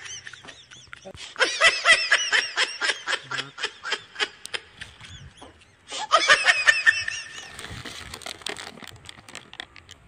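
High-pitched giggling laughter in quick, short repeated bursts, in two runs, the second starting about six seconds in.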